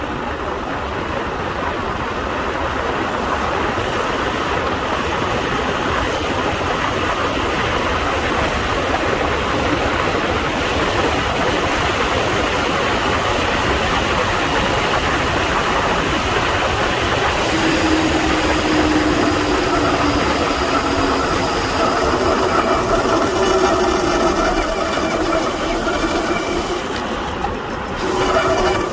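Wind rushing over the microphone and tyre noise from a road bike on a fast descent. A bit past halfway a droning tone with overtones joins and slides slowly lower in pitch: the disc brakes under braking as the bike slows.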